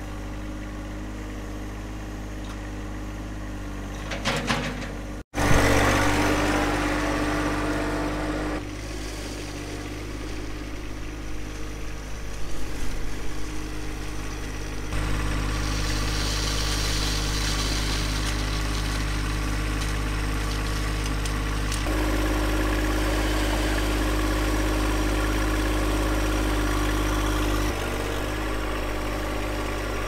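John Deere 1025R compact tractor's three-cylinder diesel engine running steadily while it backfills a trench with its front loader. Its note steps louder or quieter a few times.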